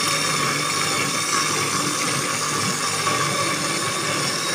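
Electric blender running steadily, grinding a wet spice paste of red chillies, shallots, garlic and candlenuts with a little water.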